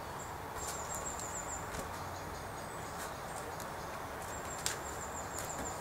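Quiet garden ambience with a steady hiss, light irregular taps of footsteps on grass and one sharper click about two-thirds of the way through. A thin, high trill sounds twice, early and again near the end.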